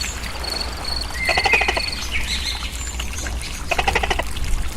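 Tokay gecko calling: two short, buzzy croaks about two and a half seconds apart. Behind them, crickets chirp in a regular pulse of high notes during the first couple of seconds.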